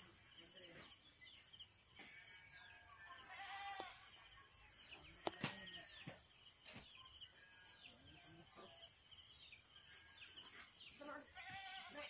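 Rural outdoor ambience: a steady, high-pitched, pulsing insect chorus, with occasional short distant calls and a couple of faint clicks.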